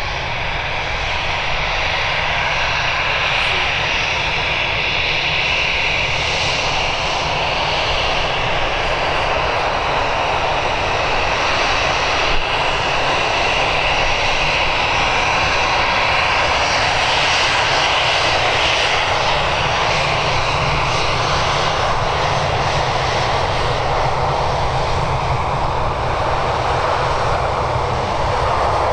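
Airbus A320-200's twin jet engines running at low taxi thrust as the airliner taxis and turns onto the runway: a steady, continuous whining rush over a low rumble.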